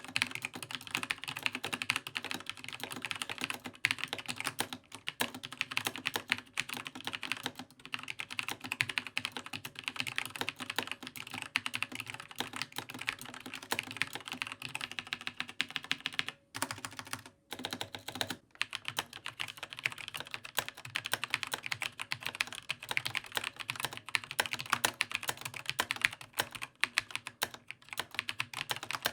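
Fast typing on a mechanical gaming keyboard with tactile, non-clicky switches: a dense, continuous run of key clacks with a couple of brief pauses a little past halfway.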